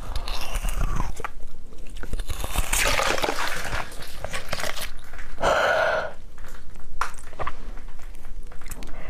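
Close-miked biting and chewing: irregular crunching with wet mouth noises, thickest a few seconds in.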